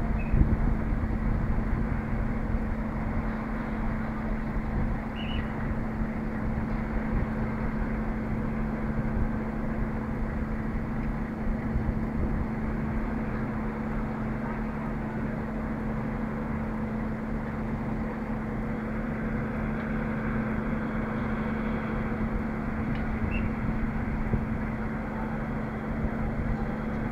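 Diesel engine of a truck-mounted mobile crane running steadily, a constant hum with a steady low tone.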